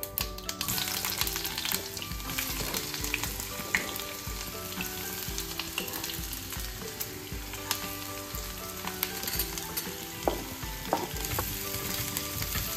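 Sliced onion, green chillies, garlic and ginger sizzling as they hit hot oil in a non-stick kadai, then frying steadily while a wooden spatula stirs them, with scattered sharp clicks and taps over the hiss.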